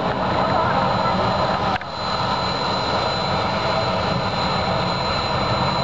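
Boeing 737 jet airliner's engines running as it rolls along the runway: a steady rumble of jet noise that dips briefly about two seconds in.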